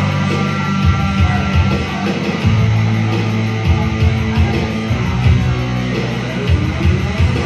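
A live rock band playing a heavy rock song: electric guitar over a bass line whose low notes change every second or so.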